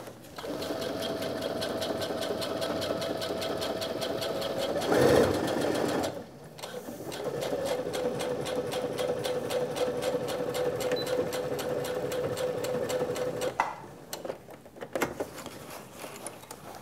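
Brother Innov-is computerized sewing machine stitching through folded vinyl faux leather, with a fast, even needle rhythm over the motor's whine. It runs in two spells of several seconds with a short pause between. It stops shortly before the end, and a few sharp clicks follow.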